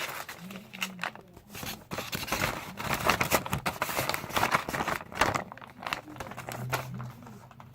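Paper or plastic packaging rustling and crinkling in irregular bursts as a package is packed by hand.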